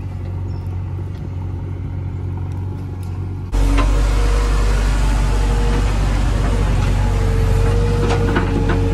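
Diesel engine of earth-moving machinery running steadily. About three and a half seconds in it suddenly becomes louder and fuller, and a few sharp clanks come near the end.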